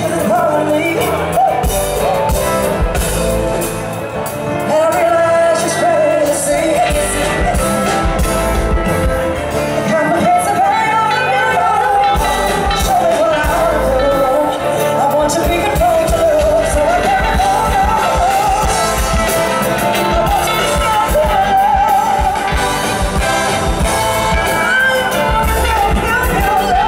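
Live band music: a woman singing a wavering melody over acoustic guitar, electric bass and drums, heard through a festival sound system.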